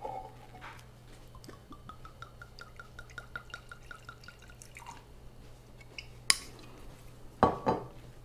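Rye whiskey glugging from the bottle neck into a glass: a quick, even run of gurgles, about six a second, rising slightly in pitch as the glass fills. A sharp clink follows about six seconds in, then a couple of duller knocks near the end.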